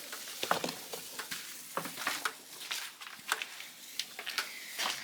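Scattered light clicks and knocks at irregular intervals over a faint hiss, like objects being handled.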